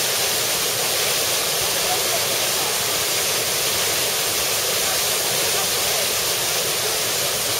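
Flowing river water rushing steadily, an even unbroken hiss.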